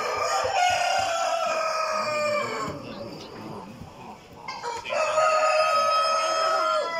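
Roosters crowing: a long drawn-out crow that falls slightly in pitch and ends about two and a half seconds in, then, after a short lull, a second long crow from about five seconds in until near the end.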